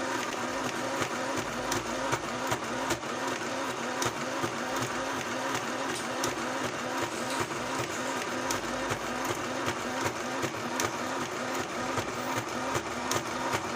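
YASM-505A mini sewing machine running steadily: a small electric motor whine with quick, even clicking from the needle mechanism.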